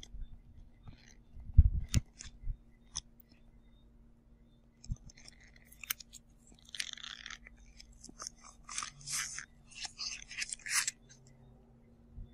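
A leather bucket bag being handled close to the microphone: a few knocks and thumps in the first seconds, then several short bursts of crinkling rustle from about five seconds in, from the tissue-paper stuffing inside the bag.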